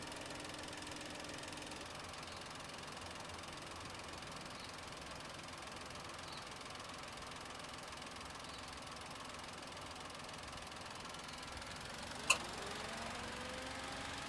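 Perodua Ativa's 1.0-litre three-cylinder turbo petrol engine idling steadily. A sharp click comes near the end, and a rising whine starts after it.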